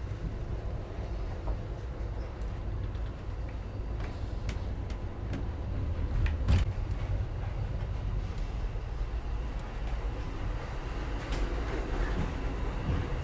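Amtrak Superliner passenger car under way, heard from inside: a steady low rumble of the train running on the rails, with scattered clicks and knocks. The loudest knock comes about six and a half seconds in.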